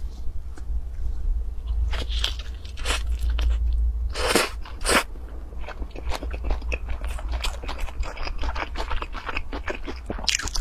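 Close-miked eating: biting into and chewing a noodle-filled rice-paper roll, with a rapid run of crackly clicks. The loudest bites come about four and five seconds in and again near the end.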